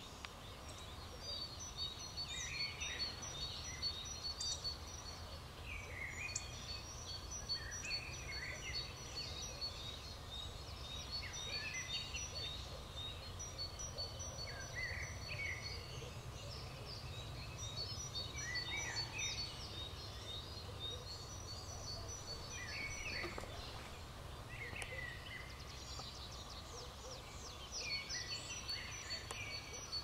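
Dawn chorus of songbirds in a spring forest: several birds sing phrases that repeat every few seconds. Their songs mix rapid high trilled notes with lower warbled notes.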